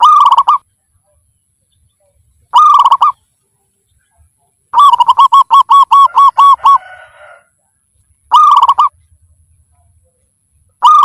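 Zebra dove calling: short phrases of rapid, staccato cooing notes a couple of seconds apart, with one longer run of about ten notes, about five a second, near the middle.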